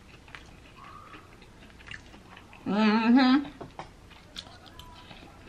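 Close-miked eating sounds: soft chewing and small clicks of a fork on a plate. About three seconds in, a loud hummed "mmm" with a wavering pitch, lasting under a second.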